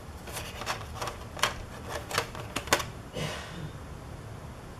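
Plastic model-kit sprues clicking and clacking as they are handled, about eight sharp light clicks over three seconds, then a brief softer rustle.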